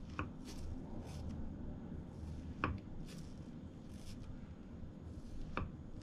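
Kitchen knife slicing through a soft, fluffy white food on a wooden cutting board: the blade taps the board three times, roughly every three seconds, with faint soft strokes of the blade between the taps.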